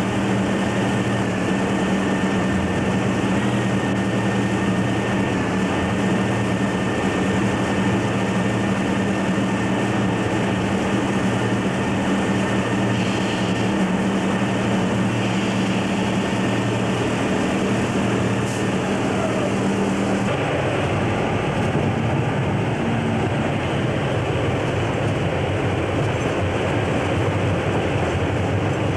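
Diesel locomotive engine running steadily, heard from inside the cab as the train moves slowly along the track; the low engine note changes about two-thirds of the way through.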